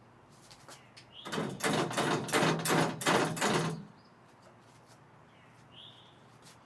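A run of about seven quick knocks and scrapes lasting about two and a half seconds, from exercise-machine parts being handled and fitted together.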